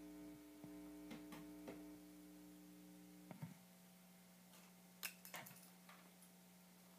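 Near silence: a faint steady electrical hum, with a few soft clicks about a second in and again around five seconds in.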